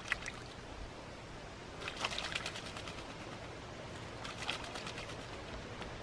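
An American crow bathing in a shallow bowl of water, fluttering its wings to splash. A short splash comes right at the start, then two rapid flurries of splashing, the loudest about two seconds in and a shorter one about four and a half seconds in.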